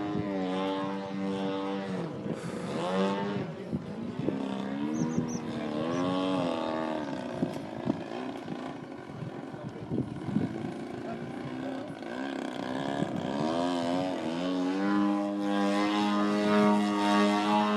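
Radio-controlled model airplane's motor and propeller buzzing, its pitch sliding up and down and its loudness swelling and fading as it flies past; it holds a steady, louder tone near the end.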